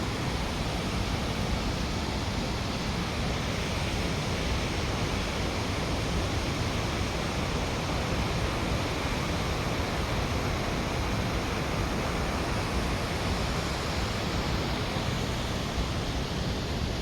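Steady rushing roar of a large waterfall in flood, swollen by heavy rain.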